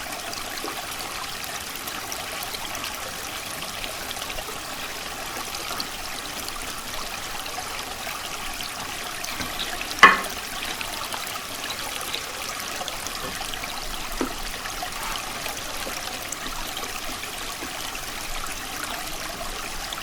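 Stream water trickling and flowing steadily, with a single sharp click about halfway through.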